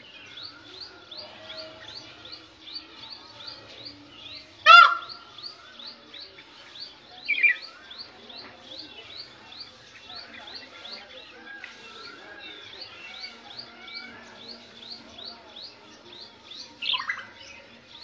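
Birds calling: a small bird repeats a short, high, rising chirp about three times a second. Another bird gives a single loud, sharp call about five seconds in, and there are shorter falling calls near seven and seventeen seconds.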